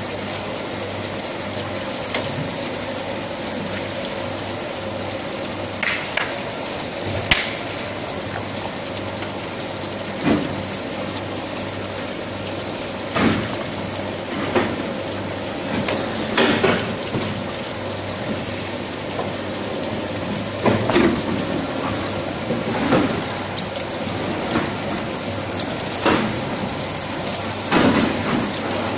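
Steady hiss and high whine of factory moulding machinery, broken every few seconds by short knocks and clatters as a metal shoe-sole mould is handled on the machine's roller bed.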